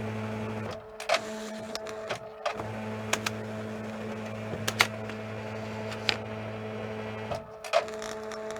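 Office ambience: an electric machine hums steadily, cutting out briefly a couple of times, under scattered clicks and knocks.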